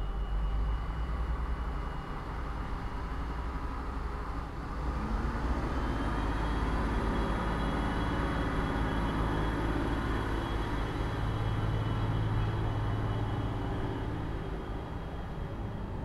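Yard ambience of a steady factory hum under distant traffic rumble. About five seconds in, a passing vehicle swells in with a faint high whine, stays loud for several seconds and eases off near the end.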